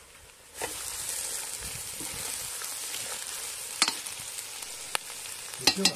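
Food frying in hot oil in a cast-iron kazan: a loud, steady sizzle that starts abruptly about half a second in. A metal slotted spatula clicks against the pot now and then, several times near the end.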